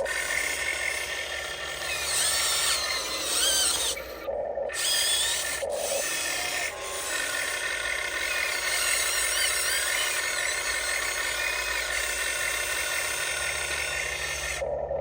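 Huina 1599 RC excavator's electric motors and gearboxes running with a rasping, grinding whine as it digs, the pitch rising and falling as the controls are worked. The motors stop briefly about four seconds in.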